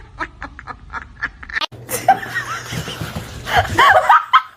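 People laughing in short repeated bursts. The sound breaks off abruptly about a second and a half in, and the laughter picks up again louder near the end.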